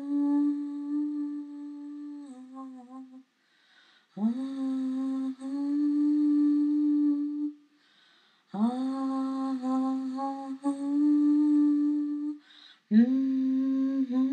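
A voice humming long held notes in four phrases with short pauses between them. Each new phrase slides up from below into the note, and the pitch steps slightly within phrases.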